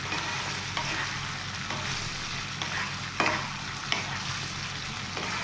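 Wooden spatula stirring fried fish pieces into a sizzling chilli sauce in a non-stick frying pan: a steady sizzle with several scraping knocks of the spatula against the pan, the loudest about three seconds in.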